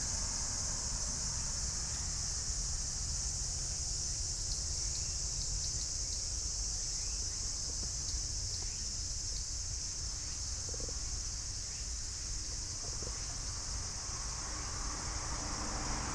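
Insects buzzing in a steady, unbroken high-pitched chorus, with a low rumble underneath.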